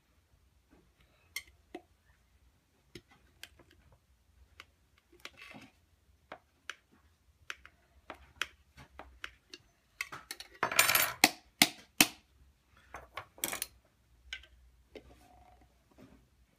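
A metal table knife and then metal tongs clicking and scraping against a stiff clear plastic case while prying a small device out of it, with scattered light taps and a louder run of knocks about eleven seconds in.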